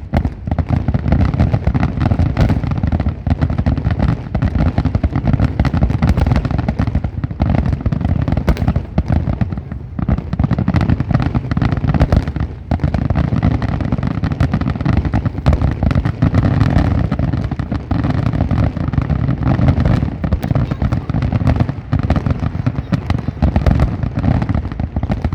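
Fireworks grand finale: a dense, continuous barrage of aerial shell bursts and crackling, with deep booms overlapping one another without a break.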